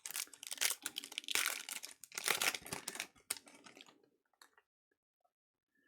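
Trading card pack's foil wrapper crinkling as it is handled and torn open: dense rustling for about three seconds, then a few light clicks.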